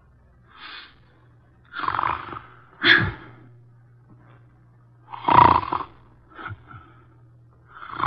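A man snoring for comic effect: a soft breath, then two rounds of a longer in-breath snore followed by a shorter out-breath, about three seconds apart. A low steady hum from the old transcription recording lies underneath.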